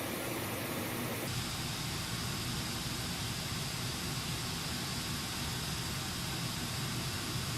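Pink noise test signal played through a Bluetooth speaker, a steady hiss. About a second in, the tone changes abruptly to fuller bass and less top treble, as playback moves to the other speaker under comparison.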